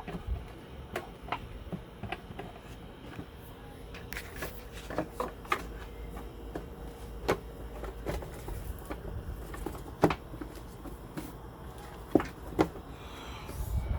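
Irregular clicks and knocks from tools and small metal parts being handled, the loudest about ten and twelve seconds in, over a faint steady hum.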